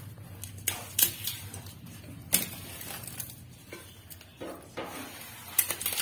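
Roasted makhana (fox nuts) being crushed by hand on an enamel plate: scattered sharp crunches and clicks, a few louder ones about a second in, around two and a half seconds and near the end.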